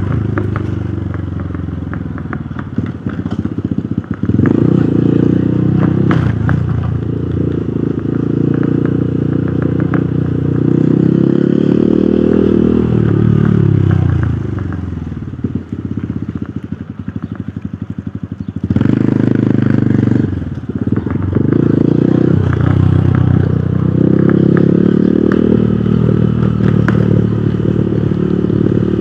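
Hero Hunk motorcycle's single-cylinder engine running under way. There are short dips in the engine note near 3–4 s. About halfway through the pitch falls as the bike slows, and the engine runs quieter for a few seconds. Near 19 s it picks up again and holds steady.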